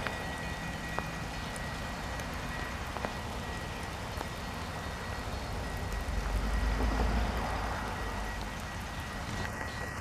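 Steady rain falling, a fine even hiss with scattered drop ticks. A low rumble swells briefly about six to seven seconds in.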